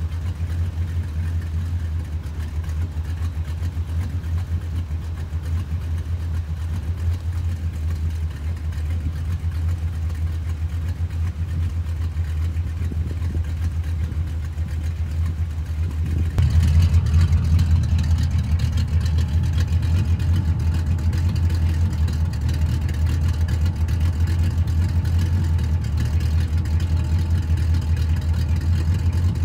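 Cammed Chevrolet small-block 305 V8 (Summit 1103 cam, Edelbrock Performer intake and 1406 carburettor) idling steadily through long-tube headers and Purple Hornies glasspack mufflers dumped in front of the rear axle. The deep exhaust note gets louder about 16 seconds in.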